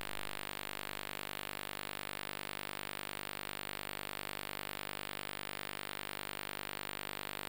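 Steady, unchanging hum with a faint hiss over it: a constant electrical background with nothing else sounding.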